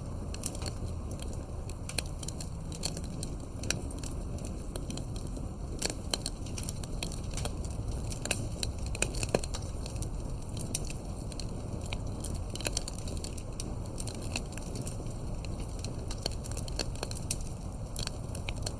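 Campfire crackling: irregular sharp pops and snaps over a steady low rumble of burning wood.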